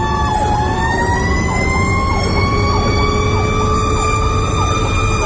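Fire engine's sirens heard from inside its cab: a long held siren tone that dips and then slowly climbs, with a fast yelp cycling about three times a second over it, and the truck's engine running underneath.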